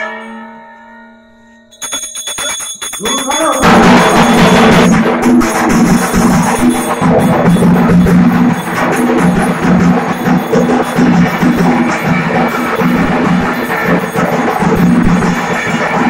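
Aarti percussion. A bell's ring dies away over the first two seconds, then clanging starts, and from about three and a half seconds in a loud, dense din of bells and drums runs on, with voices in it.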